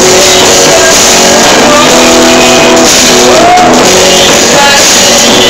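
Live band playing a worship song together: drum kit, electric guitar and bass, with a voice singing at the microphone. Very loud and continuous, with held notes changing every second or so and a short sliding note about three and a half seconds in.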